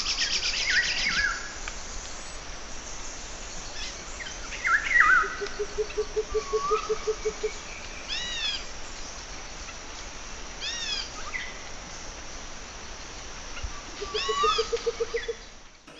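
Birds calling over a steady faint hiss: short falling chirps, repeated arching calls, and twice a low rapid trill of about six pulses a second. The loudest calls come at about five seconds in.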